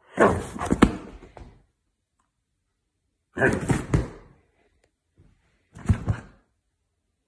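Three bouts of loud thudding knocks, each made of several blows, about two seconds apart.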